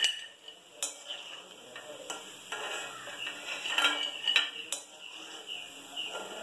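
A metal slotted spoon scraping and clinking against a steel kadai and a ceramic plate as fried pakodas are scooped out of the oil and pushed onto the plate. It gives a few sharp clinks, one at the start and a cluster about four seconds in.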